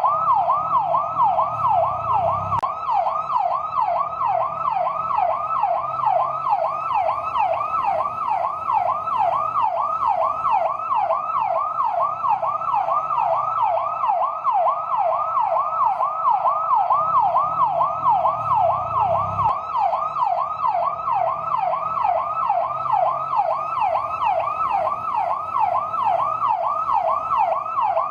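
Fire truck yelp siren: a fast, steady up-and-down wail repeating about three times a second.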